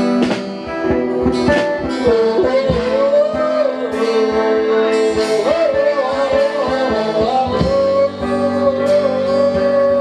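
Live band music: a voice holds long, wavering melodic notes over a steady held chord and plucked-string accompaniment, with frequent light percussion strokes.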